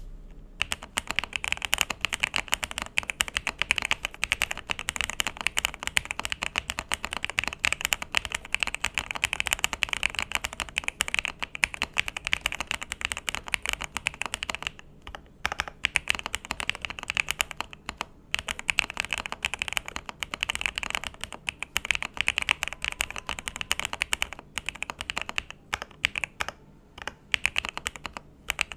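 Fast typing on an Akko ACR Top 40 mechanical keyboard with Akko CS Pro Silver switches and GMK Botanical Hiragana clone keycaps, a dense run of clacky keystrokes with a few brief pauses.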